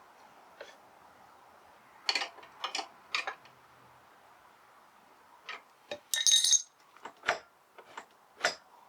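Scattered sharp metallic clicks and clinks of small tools and parts being handled while a motorcycle clutch is attached and adjusted, with a brief louder rattle a little past the middle.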